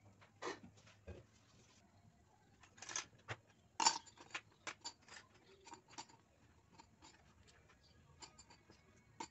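Faint, irregular light clicks and taps, the loudest a little before four seconds in.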